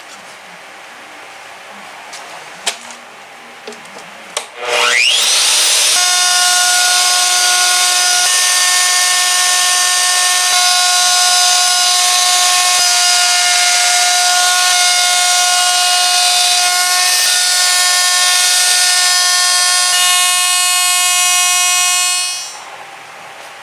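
Electric plunge router switched on about five seconds in, its whine rising as the motor spins up, then running steadily at full speed as the bit mills out a pocket around a dead knot in a timber beam, ready for a wooden plug. It stops about a second before the end, after a few light clicks of handling at the start.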